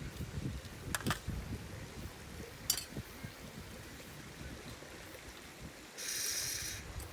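Wind buffeting the microphone outdoors, with a few sharp clicks about a second in and again near three seconds, and a brief hiss near the end.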